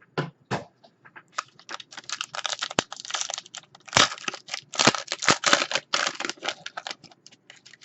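A trading card pack's wrapper being torn open and crinkled by hand, a dense run of rapid crackles and clicks.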